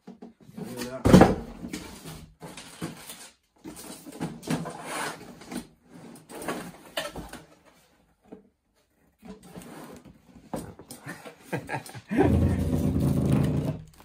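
Cardboard boxes and plastic packaging being handled: rustling, scraping and bumping as boxes are lifted and flaps opened, with a sharp knock about a second in and a longer, louder scraping rustle near the end.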